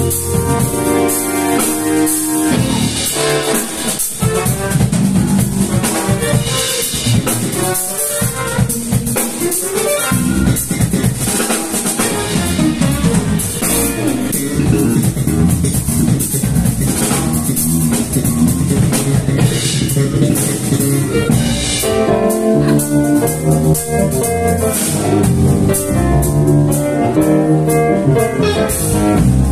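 Live band playing an instrumental funk/soul-jazz number: drum kit keeping a steady beat under electric guitars, electric bass and keyboard.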